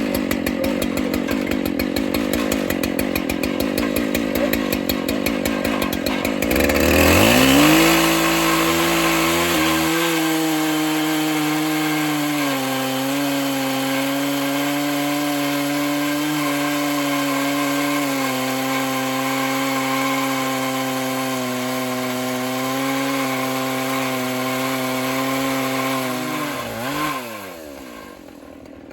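Two-stroke chainsaw on an Alaskan chainsaw mill. It runs at a low, fast-pulsing idle, then revs up about six seconds in and holds a steady high whine while it cuts a slab from a white oak log, its pitch sagging a little under load. Near the end the throttle is released and the engine note falls away.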